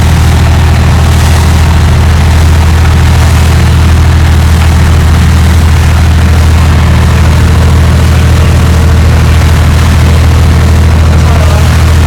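Fishing boat's engine running with a loud, steady low drone.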